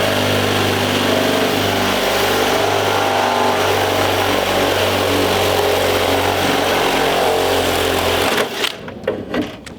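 Cordless drill spinning a hole saw through a carbon fiber hood: a steady motor hum with the grinding of the cut, stopping abruptly about eight seconds in.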